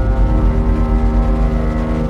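Background music of sustained chords over a deep bass.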